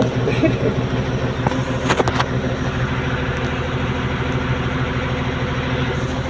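Engine of a machine being driven, running steadily, with a short cluster of sharp knocks about two seconds in.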